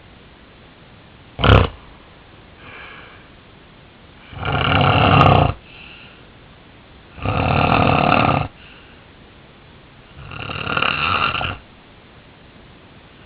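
A man snoring in his sleep: a brief sharp sound about a second and a half in, then three loud snores, each a little over a second long and about three seconds apart. The sleeper believes he has sleep apnea.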